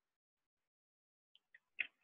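Near silence, then two faint clicks and a single light tap near the end.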